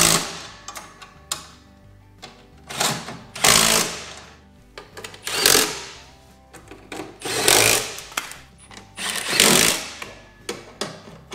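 Cordless impact driver run in short bursts, about five in all, driving in the bolts that hold the slice seeder's blade reel in place.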